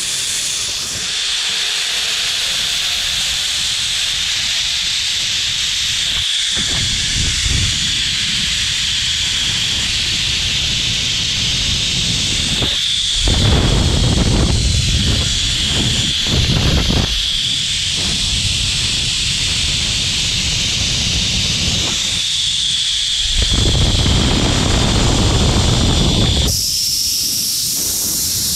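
Zip line trolley pulleys running fast along the steel cable: a steady high whirring hiss that steps up in pitch near the end. Gusts of wind rush over the microphone several times.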